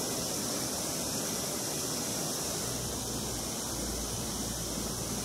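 Steady rushing of falling water from a mountain stream, an even hiss. A low rumble joins about halfway in.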